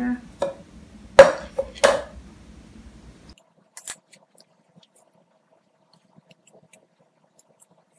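Light clinks and taps of metal binder clips and wooden sticks knocking against a glass bowl and a serving tray: three sharp clinks in the first two seconds, the middle one loudest, then a few faint ticks.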